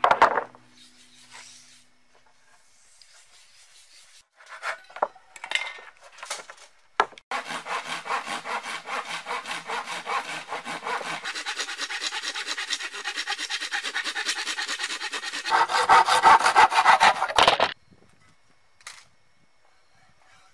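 Hand saw cutting through a wooden plank in quick, even back-and-forth strokes. The sawing grows louder in its last couple of seconds and then stops suddenly as the cut is finished. It is preceded by a few wooden knocks as planks are set down.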